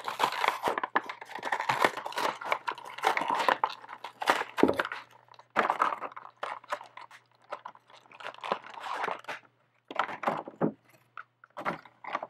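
Toy figurine packaging crinkling, crunching and tearing in irregular bursts as it is opened by hand, with a few brief pauses near the end.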